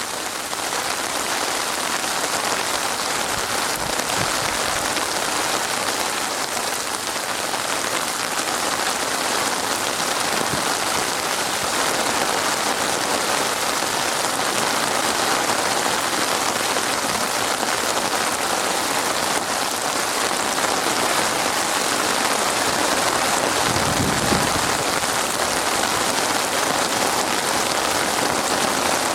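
Steady rain falling on a surface, a dense even hiss of drops, with a brief low rumble about 24 seconds in.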